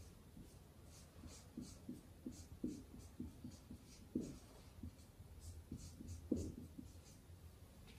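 Felt-tip marker writing on a whiteboard: a run of short, faint, irregular squeaks and scrapes as letters are drawn stroke by stroke.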